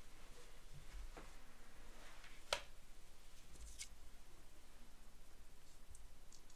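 Quiet room with a few faint clicks and light rustling; the sharpest click comes about two and a half seconds in, and a smaller one just before four seconds.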